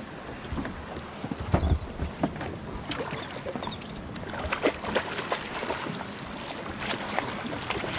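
Water splashing and sloshing at the boat's side as a hooked fish thrashes at the surface, with scattered knocks and clicks and a low thump about a second and a half in.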